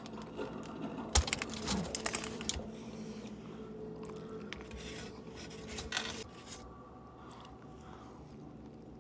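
Close-up sounds of a burrito being handled and eaten: a cluster of sharp clicks and crinkles about a second in, and another sharp click around six seconds in, over a steady low hum.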